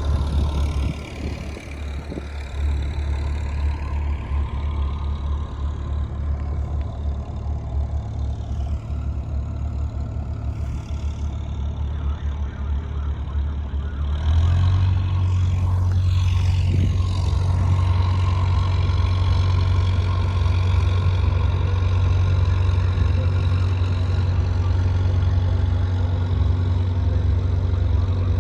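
A bottom-trawl fishing boat's diesel engine running steadily. About halfway through it gets abruptly louder and stays there, as the throttle is opened.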